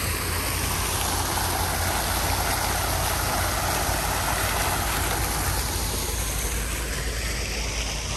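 Water splashing from a row of fountain jets falling into a pool, a steady rushing that swells then fades as it is walked past, over a low steady rumble.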